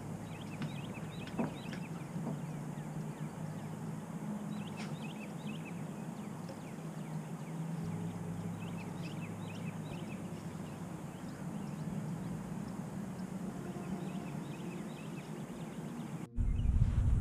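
Outdoor ambience: faint, scattered bird chirps over a steady low hum. Near the end it switches suddenly to a much louder low rumble.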